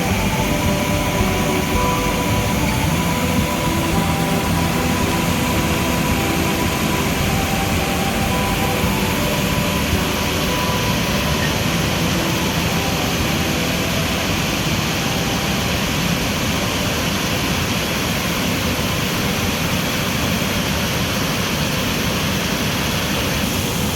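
Waterfall on a river, water pouring and rushing in a loud, unbroken roar.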